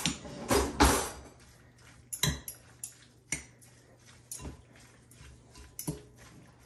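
Metal forks rattling, then clinking against a cooking pot while cooked pork roast is pulled apart: a loud clatter about half a second in, followed by a handful of scattered sharp clinks.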